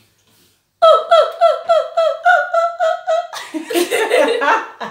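A woman's voice imitating an animal call: a quick run of about ten short, even-pitched 'oh' calls, about four a second, breaking into laughter near the end.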